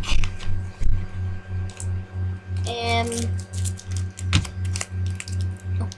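Booster-pack foil wrapper handled and pulled at while being opened: scattered small clicks and crackles, with one sharper click about four seconds in. A low hum pulsing about twice a second runs underneath, and a brief voice sound comes about halfway through.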